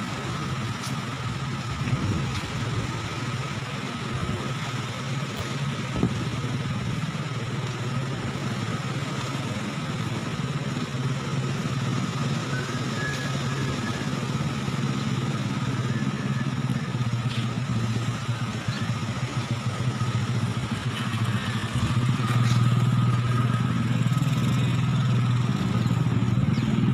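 A motor vehicle's engine running steadily while on the move, a continuous low hum that slowly gets louder toward the end.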